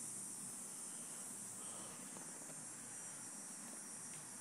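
Quiet room tone with a faint, steady high-pitched hiss and no distinct events.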